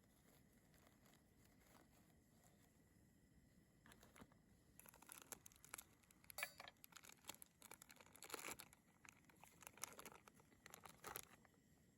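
Faint crinkling and rustling in irregular small crackles, starting about four seconds in and stopping shortly before the end.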